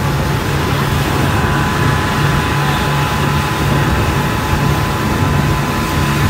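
Speedboat engine running steadily at speed, with a steady rushing noise over it and a faint thin whine.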